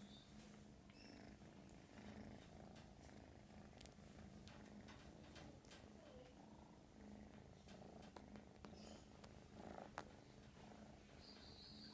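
American Shorthair kitten purring quietly and without a break, a low pulsing rumble, with a few faint clicks.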